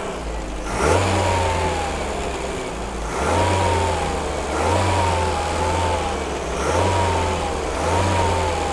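Triumph Acclaim's 1.3-litre Honda-built four-cylinder engine, just started from cold and warming on part choke, revved five times from the throttle linkage. Each rev rises quickly and then settles back to a fast idle.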